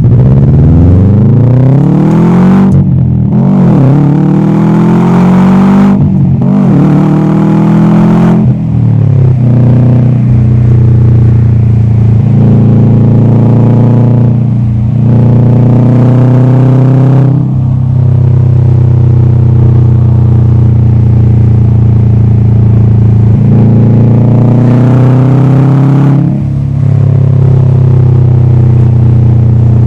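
2020 Subaru WRX STI's turbocharged 2.5-litre flat-four engine pulling hard through the gears. The revs climb and drop at each shift over the first eight seconds or so, then run steadier with brief dips now and then.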